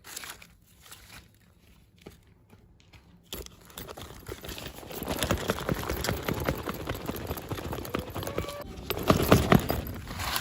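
Toy packaging being handled: scattered light clicks and taps, then about three seconds in a busy run of plastic-and-cardboard rustling, crinkling and clicking that grows louder near the end.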